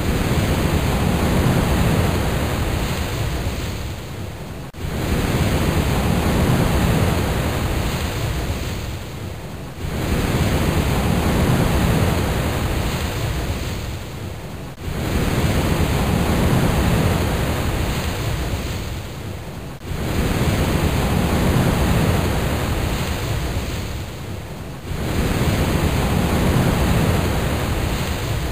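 Pacific surf breaking on a rocky shore, a heavy low rush of waves with wind buffeting the microphone. The sound jumps abruptly about every five seconds, sagging a little before each jump.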